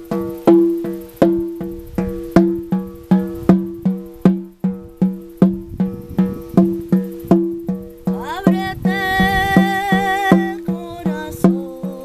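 Shamanic frame drum, a round hide drum struck with a beater, beating a steady pulse at a little under three strokes a second, each stroke ringing low. About eight seconds in, a voice slides up into a long high wavering note held for about two seconds, then carries on lower near the end.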